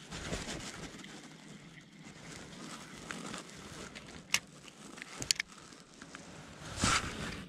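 Spinning reel being handled: a few sharp clicks about halfway through, then a louder, brief rush of noise near the end.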